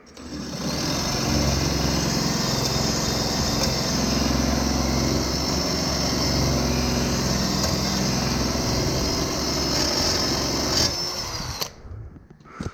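Handheld power tool spinning a small sharpening disc against a steel lawn mower blade, grinding a new edge onto it. It runs steadily with a high whine, then cuts off near the end and winds down with a falling pitch.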